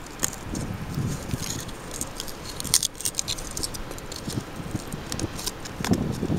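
Irregular clicks and scrapes of a small metal hand tool picking and prying at rock around a geode cavity, loosening grit and rock fragments. A louder low rumble comes at the very end.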